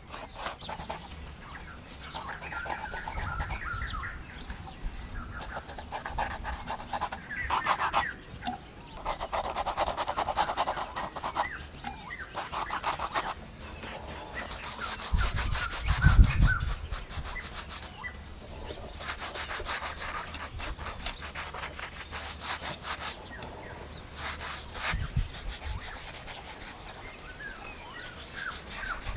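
Paintbrush scrubbing paint onto rough plastered concrete in repeated bouts of strokes, with a low thump about halfway through. Birds chirp now and then.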